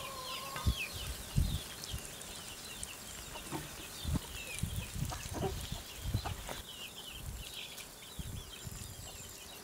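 Chickens clucking and chirping, many short calls throughout, with soft low thumps now and then.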